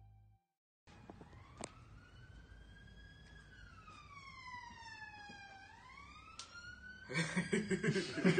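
A faint siren wailing, its pitch rising slowly, falling, then rising again. About seven seconds in, loud laughter and talking break in over it.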